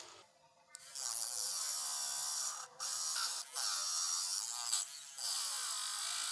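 Small electric rotary tool whining in four bursts of a second or two each, with a wavering high pitch, as it cuts through the metal shield cage on a tablet's logic board.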